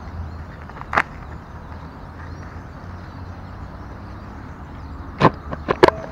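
Plastic bubble mailer being handled and torn open: one short crackle about a second in, then a quick cluster of sharp crinkles and rips near the end, over a steady low background rumble.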